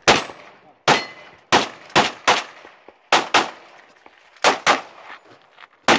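About ten rapid shots from an STI DVC Open 9mm competition pistol, several as quick pairs about a fifth of a second apart. After some of the shots steel targets ring faintly when hit.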